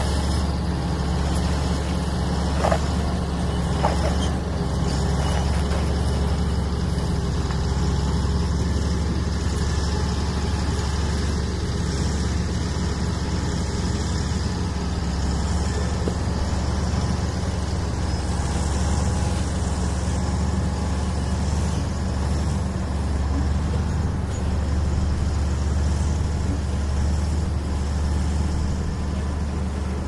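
Bulldozer's diesel engine running steadily, a constant low drone, with a couple of light knocks about three and four seconds in.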